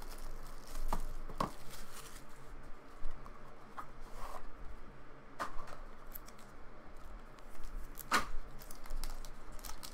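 Hands handling a cardboard trading-card box and a pack of cards: scattered clicks, taps and short rustles of card and packaging, the sharpest about three seconds in and again around eight seconds.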